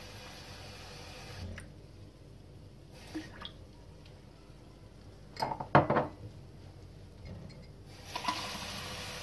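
Water from a kitchen tap running into a drinking glass to fill it. It stops after a second or so and starts again near the end, with a short clatter of glass knocking on a hard surface about halfway through.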